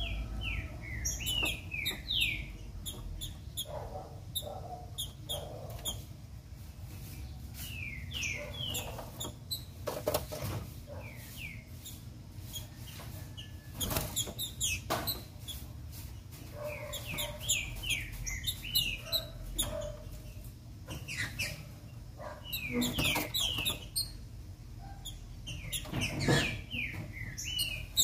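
Female trinca-ferro (green-winged saltator) calling: quick groups of short, downward-slurred chirps, repeated every few seconds, with a few sharp knocks in between.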